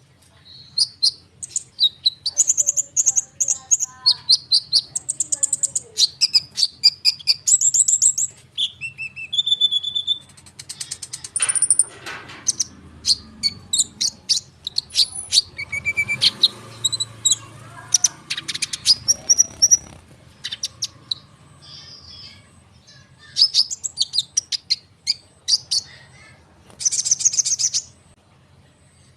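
Konin (kolibri ninja, a sunbird) singing a dense, rolling song of rapid high chirps and trills, thinning briefly about two-thirds of the way through.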